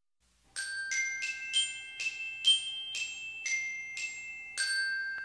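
Short intro jingle played on glockenspiel: a melody of about ten bright, bell-like struck notes that start about half a second in, each ringing on, with the last note held and slowly fading.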